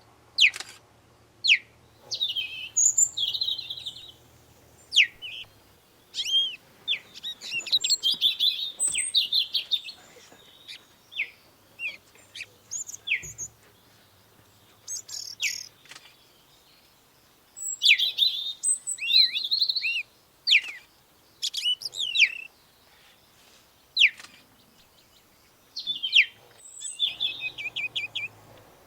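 Small birds chirping and twittering in irregular bursts of short, high notes, many of them quick downward-sliding chirps, with brief pauses between bursts.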